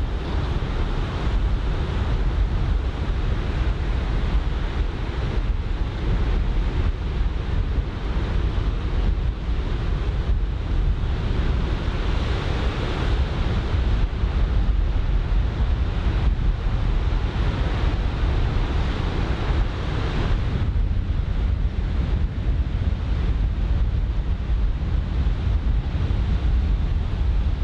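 Breaking surf washing in over heavy wind rumble on the microphone, a steady loud noise that swells and eases as the waves come in. The wind is onshore, blowing in off the typhoon swell.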